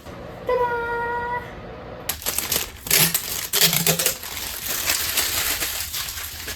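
A brief steady tone, then several seconds of crinkling and clattering as the oven's accessories and their packaging are handled.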